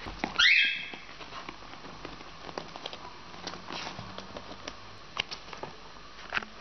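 A young animal gives one short, high-pitched squeak that rises sharply in pitch, about half a second in. Light scratching and scattered clicks follow in the cardboard box.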